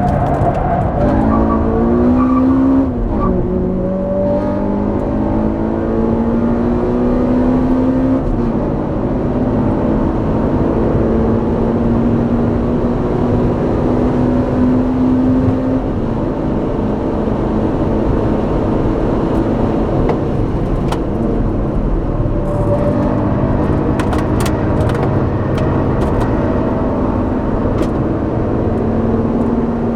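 Honda Civic Type R EP3's 2.0-litre four-cylinder engine, heard at the exhaust, pulling hard around a race track. It revs up and shifts up twice in the first several seconds, holds a long steady pull, eases off around the middle, then accelerates again near the end.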